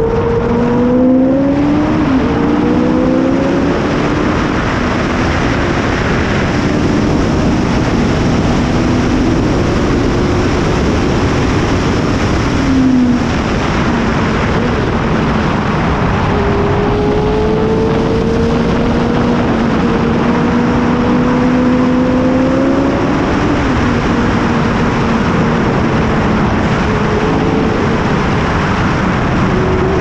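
Onboard sound of the Lotus 79 Formula 1 car's Cosworth DFV V8 engine running hard on track. The engine note climbs and drops repeatedly with throttle and gear changes, with a brief lift and blip about thirteen seconds in, over heavy wind and road noise.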